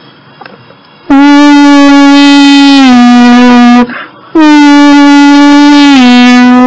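Two loud, long, buzzy horn-like tones, one after the other with a short gap, each holding one pitch and then stepping down slightly near its end.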